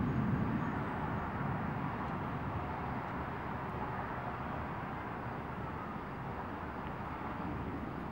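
Steady rushing noise of heavy rain, with a low rumble dying away over the first second or two.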